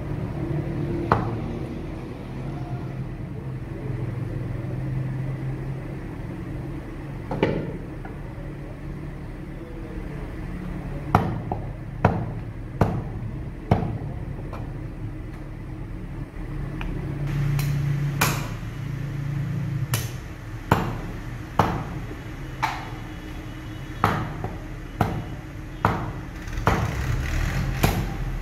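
Heavy cleaver chopping meat on a wooden stump block: sharp chops, a few scattered at first, then a run of about one a second through the second half. A steady low hum runs underneath.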